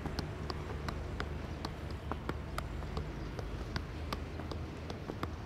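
A football kept up with the feet by a seated player: soft, even taps of the ball on his shoes, about three a second, over a low steady background rumble.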